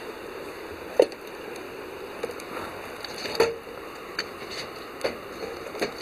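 Metal cookware and tongs being handled over a wood fire: several sharp clinks and knocks, the loudest about a second in and again midway, over a steady hiss.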